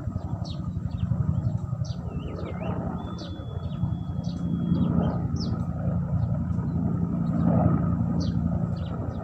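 Helicopter flying over, a steady low rotor-and-engine rumble with a fast chop that swells and eases. Birds chirp over it throughout, with one held whistled note in the middle.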